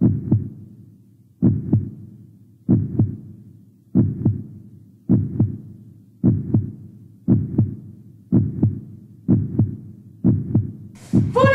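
Heartbeat sound effect: a steady double thump, lub-dub, repeating about every second and gradually speeding up.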